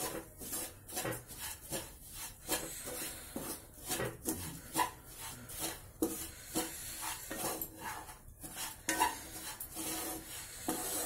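Wooden spatula scraping and stirring a crumbly mixture of fried ground moong dal and sugar around a frying pan, in repeated irregular strokes.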